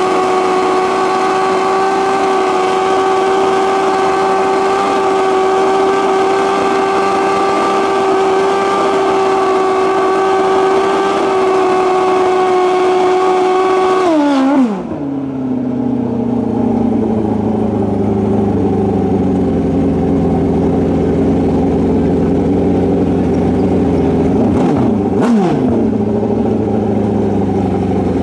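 Drag-racing motorcycle engine held at high, steady revs during a burnout. About halfway through the revs drop sharply and it settles to a lower, steady running note, with a quick throttle blip near the end.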